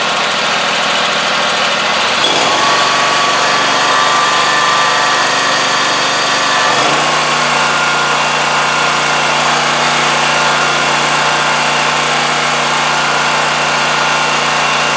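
Scag Tiger Cat zero-turn mower engine running steadily, its note shifting about two seconds in and again near seven seconds.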